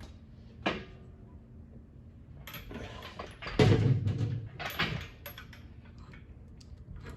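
Heavy metal work on a milling machine head hanging from an engine hoist. There is a single ringing metal clank, then a couple of seconds of scraping and knocking from the hoist and head, loudest in the middle.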